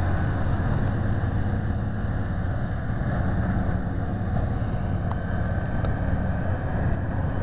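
A big wood chipper running steadily, a constant deep machine drone with no change in pitch or level.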